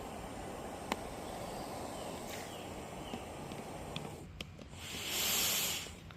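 Steady hiss of a butane-propane camping stove with food cooking in the pan on it, with a single click about a second in and a louder, brighter hiss lasting about a second near the end.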